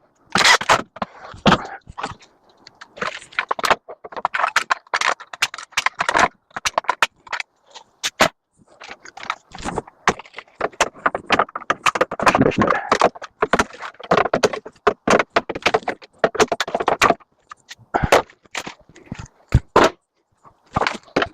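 Metal panels and parts of a microwave oven clattering, knocking and scraping while it is pried apart by hand. The sound is a run of sharp clicks and clanks, with a busier stretch of scraping and rattling in the middle.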